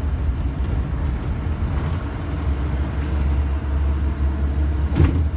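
Mercedes-Benz 360-horsepower truck diesel engine running with a steady low, quiet rumble. A sharp click comes about five seconds in.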